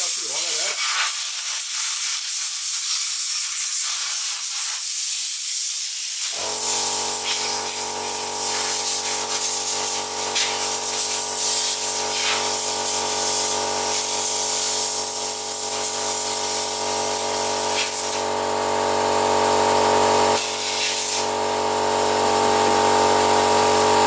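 A steady hiss of air, then about six seconds in an air compressor starts and runs with a steady hum under the hiss. The hum cuts out briefly about twenty seconds in and resumes.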